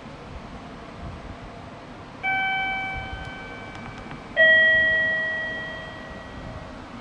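A two-note ding-dong chime. A higher note sounds about two seconds in, then a lower, louder note about two seconds later; each rings out and fades.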